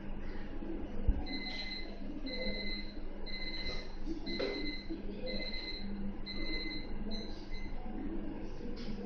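An electronic beeper sounding a steady series of about seven short, evenly spaced beeps, roughly one a second, over a low steady hum. A single thump comes about a second in.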